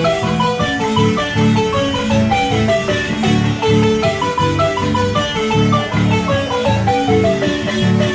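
Marimba ensemble playing a lively tune: quick runs of struck notes over a steady, pulsing bass.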